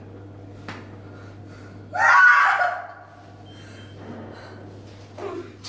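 A woman's startled gasp, one short loud cry of under a second about two seconds in.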